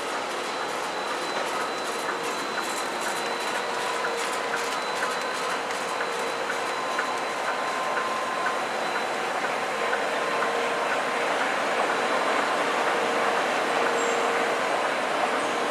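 Mark Andy 12-colour flexographic label press running, its rollers and paper web moving through the print stations: a steady mechanical rattle and whir with a few steady tones and a faint, regular ticking.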